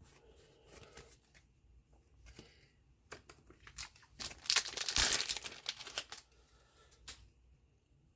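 A foil booster pack wrapper torn open and crinkled for about two seconds, a few seconds in, after some light clicks of cards and packaging being handled.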